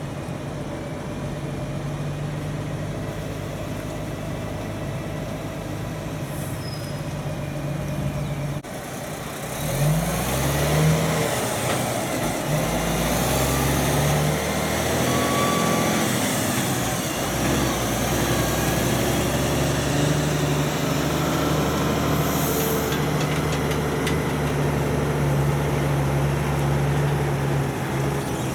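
Heavy log truck's diesel engine running as it hauls a loaded multi-trailer log train past. About a third of the way in the sound breaks off and comes back louder, the engine pitch rising as the truck pulls through before settling into a steady pull.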